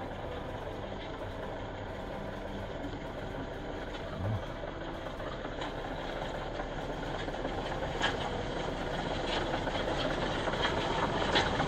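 Tractor diesel engine running as the tractor drives on steel (iron) rear wheels over asphalt, with a continuous rattle from the steel wheels on the road. It grows steadily louder as it approaches, with a few sharp clicks in the later part.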